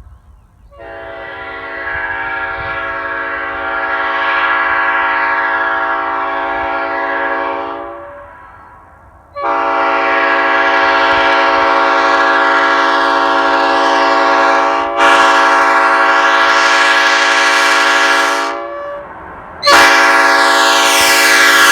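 Nathan Airchime Old Cast P5 five-chime train horn, with bells 1 through 5, blown in long chord blasts. The first swells up slowly and holds for about seven seconds. After a short gap the second sounds for about nine seconds and gets suddenly louder and brighter near its end. A third blast starts near the end.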